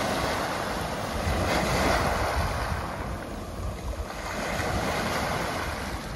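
Small waves washing up onto a pebble beach and drawing back, in two slow surges, with wind rumbling on the microphone.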